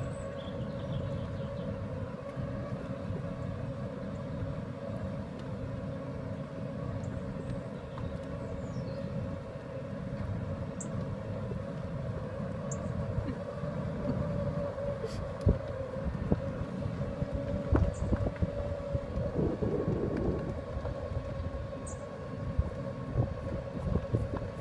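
Electric buggy driving along a paved path: a steady motor whine over tyre and wind rumble, with a few small knocks and rattles in the second half.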